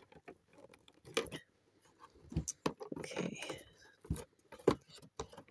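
Fingers and nails scratching, clicking and rustling against the cardboard door and plastic insert of an advent calendar, prying at small items that are stuck tight. Irregular small clicks and scrapes, busiest in the middle.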